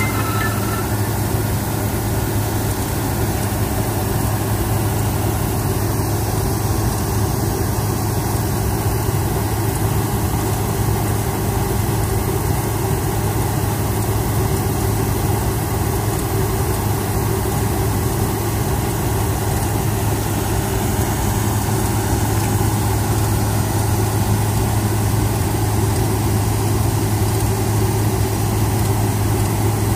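New Holland combine harvester running steadily at an unchanging pitch, its diesel engine and machinery working while the unloading auger discharges threshed wheat grain.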